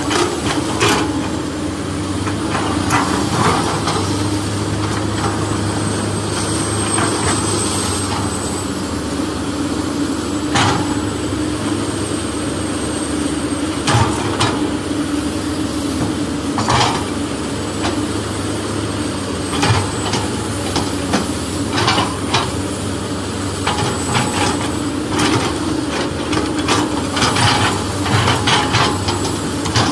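Heavy machinery engine running steadily at a low hum, with irregular clanks and knocks scattered through it.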